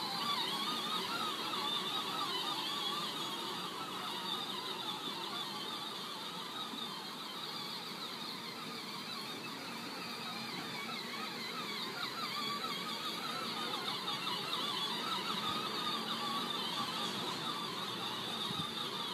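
Two children's battery-powered ride-on ATVs, their electric motors and gearboxes giving a wavering whine as they drive across grass. It is loudest near the start, fades in the middle and swells again later on.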